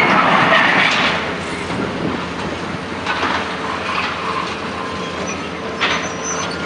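Caterpillar demolition excavators working a building over: concrete and debris crashing and scraping over the diesel engines, loudest in the first second, with a few sharper knocks later on.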